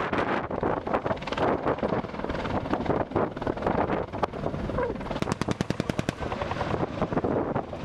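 Attack helicopter flying, with rotor and wind noise on the microphone and a few scattered sharp cracks. A little past the middle comes one burst of rapid automatic fire, about a dozen shots in one second.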